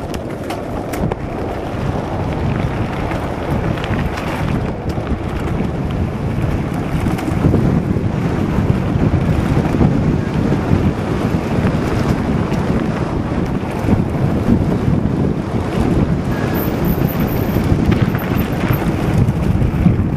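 Wind buffeting the microphone of a helmet-mounted camcorder on a fast bike ride over a grassy dirt trail, a steady low rushing that grows a little louder as it goes on, with a few knocks near the start.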